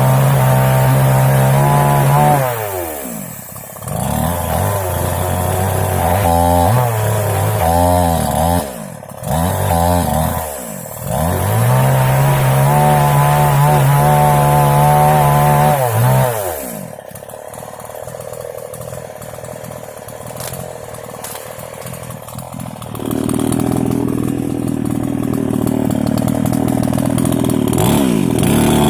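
Small two-stroke mini chainsaw revving hard at high throttle, then falling back toward idle and revving up again several times. A long low-speed stretch comes in the second half, before it picks up near the end.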